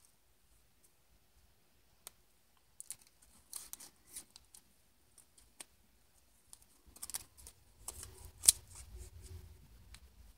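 Scissors snipping through folded paper in short, irregular snips with pauses between them; the loudest snip comes about eight and a half seconds in.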